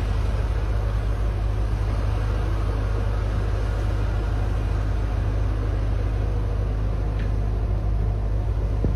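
Caterpillar 320 hydraulic excavator's diesel engine running steadily with a low rumble.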